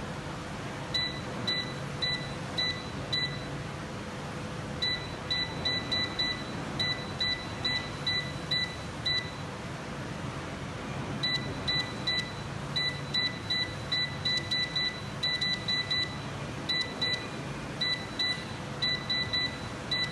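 Electric fireplace's control board beeping: many short, identical high beeps in quick runs of about two a second as its settings are stepped through, with a pause about ten seconds in. A steady hiss runs underneath.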